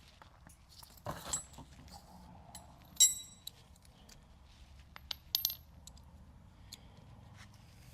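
Metal hand tools clinking against each other: a short clatter about a second in, one sharp ringing clink at about three seconds (the loudest), and a couple of lighter clicks a little after five seconds.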